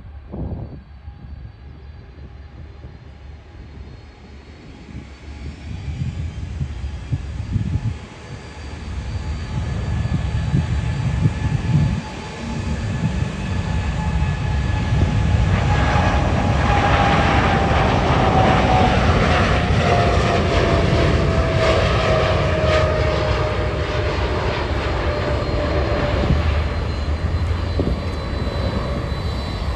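Boeing 747 freighter's four jet engines at takeoff power, growing steadily louder as it rolls and lifts off. Then a loud, steady rumble with a whine that slowly falls in pitch as the jet climbs past and away.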